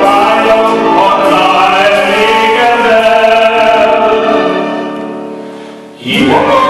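Live small band with violin accompanying a male singer; the held note fades away over about two seconds, then the band comes back in suddenly about six seconds in, with a female voice joining the male singer in a duet.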